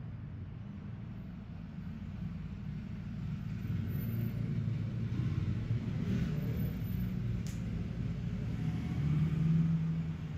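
Low, steady background rumble that swells louder from about three seconds in, with one faint click near the end.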